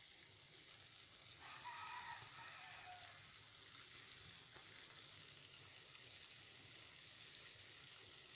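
Saltfish, carrot and onion stew sizzling faintly and steadily as it simmers in a non-stick frying pan.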